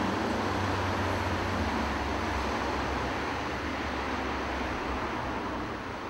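Steady outdoor street noise: the low rumble of passing road traffic, which fades after about five seconds.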